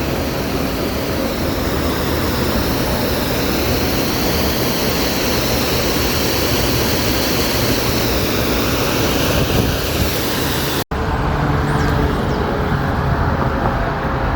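Steady roar of Manhattan street traffic, with a brief break about eleven seconds in.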